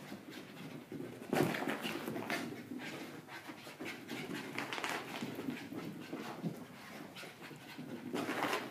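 Small dogs panting and scuffling as they chase each other at play, with a sharp louder scramble about a second and a half in and another near the end.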